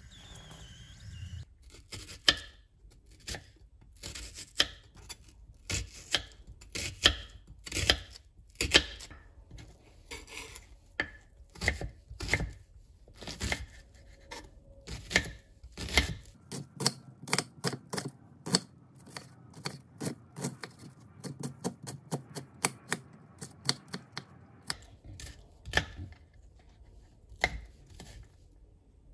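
Kitchen knife dicing an onion on a wooden cutting board: a long run of sharp chops, spaced out at first, then quicker and lighter through the second half.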